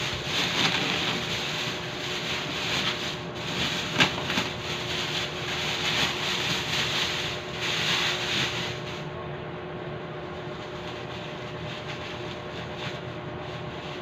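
Clear plastic bag rustling and crinkling as it is pulled off a PC tower case, with a sharp tap about four seconds in. The rustling stops about nine seconds in, leaving only a faint steady hum.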